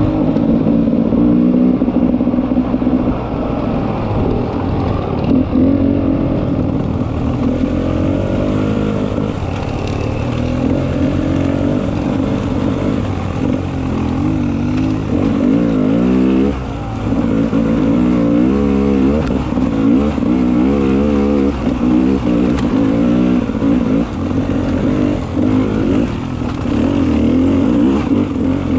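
Beta 300 RR two-stroke single-cylinder enduro motorcycle engine being ridden hard, its pitch rising and falling constantly with the throttle, with a quick sharp rise about halfway through.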